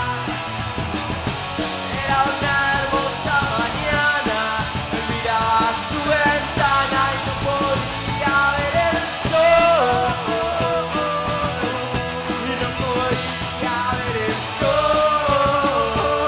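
Rock band playing live: a man singing over electric guitars, bass guitar and a drum kit with cymbals.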